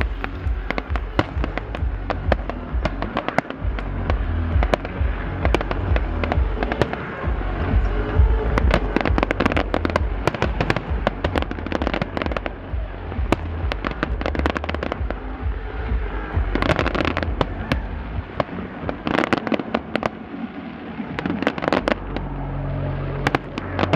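Fireworks bursting in rapid succession, a dense run of bangs and crackles, over the heavy bass of dance music from a festival sound system. The bass drops away for a few seconds after the middle, leaving only the bangs, then comes back as a steady low tone near the end.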